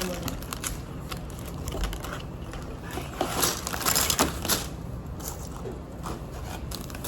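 LEGO bags and plastic pieces being handled: irregular crinkling and clicking, busiest about three to four and a half seconds in.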